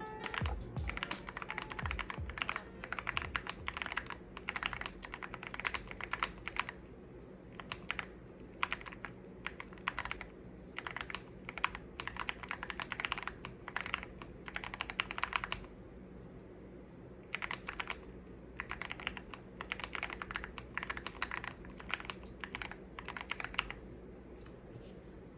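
Typing on a YUNZII AL66 65% prebuilt mechanical keyboard: thocky keystrokes in rapid runs, with brief pauses between them, stopping shortly before the end.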